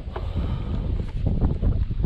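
Wind buffeting the microphone with a low rumble, under several short rustling strokes of a wet rope being hauled hand over hand through knit gloves.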